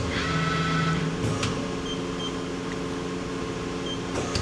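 Tool turret of a Mori Seiki NLX-2500SY CNC turning center indexing between stations. A brief motor whine as it rotates, and sharp clunks as it locks, near the start, about a second and a half in, and near the end, over the machine's steady hum.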